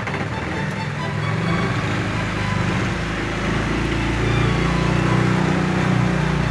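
Boat engine running steadily with a low, even drone that grows louder over the first few seconds, with water noise around it.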